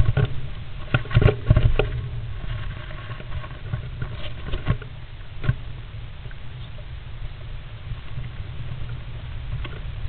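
Great spotted woodpecker shifting and turning inside a wooden nest box, its claws and body scratching and scrabbling on the wood and nest litter. The scratching comes in clusters of sharp clicks, thickest in the first two seconds and again around four to five and a half seconds in, over a steady low hum.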